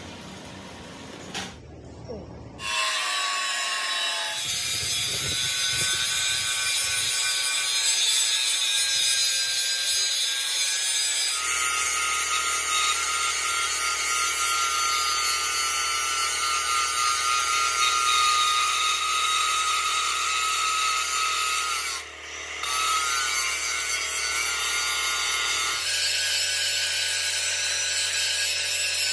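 A workshop power tool running under load on metal: a steady whine over a hiss. The sound changes abruptly several times, and the whine slides in pitch a couple of times as the machine speeds up or slows.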